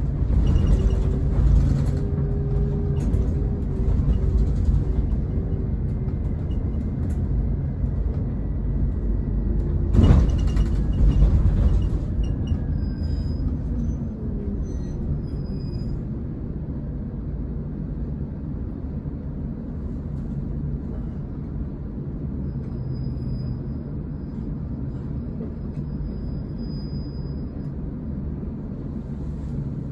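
Scania K410EB coach's 13-litre six-cylinder diesel running, heard from inside the cabin as the coach moves slowly, with a loud hiss of air about ten seconds in. After that the engine settles quieter and steadier.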